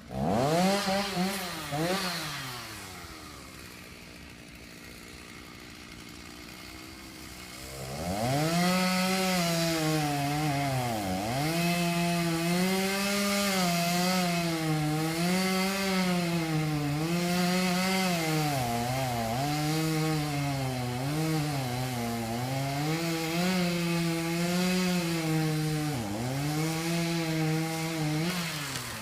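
Stihl MS290 two-stroke chainsaw revving twice, then idling for several seconds. From about eight seconds in it runs at full throttle cutting into the oak, its pitch sagging and recovering every second or two as the chain loads up in the wood, until it drops off at the end.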